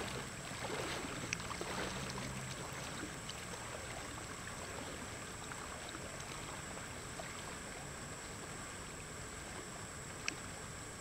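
Legs wading through shallow river water, splashing for the first couple of seconds, then the steady rush of the river. A single sharp click near the end.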